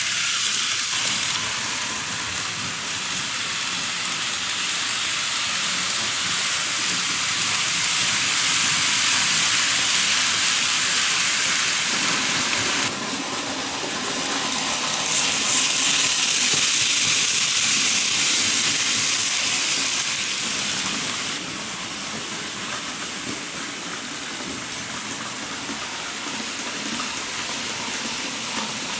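N gauge model trains running on the layout's track: a steady whirring hiss of small motors and metal wheels on rails. The sound shifts abruptly twice.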